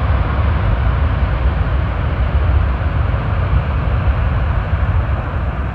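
Jet airliner's engine noise during its landing rollout on a wet runway: a loud, steady rush over a heavy low rumble, which is partly wind on the microphone.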